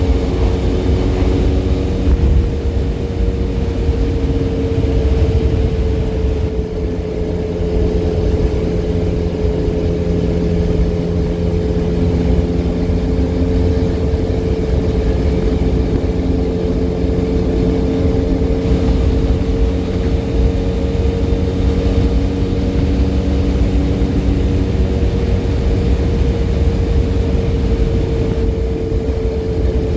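Benelli Leoncino 500 Trail's parallel-twin engine, fitted with a MIVV Double Gun exhaust, running at a steady cruise with an even engine note. Heavy wind rumble on the microphone from riding at about 100 km/h.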